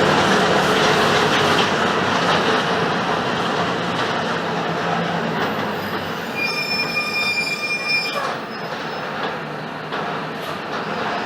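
Mercedes-Benz OF-1721 bus's diesel engine and road noise under way, easing off as the bus slows. About six and a half seconds in, the brakes give a high-pitched squeal for about a second and a half, and the bus is quieter afterwards.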